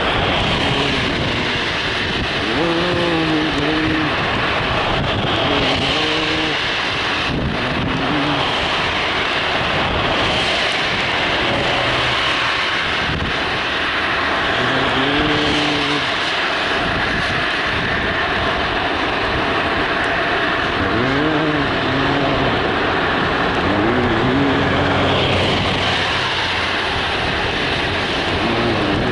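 Steady road and wind noise of a car on the move, with a pitched tone that briefly rises and falls several times.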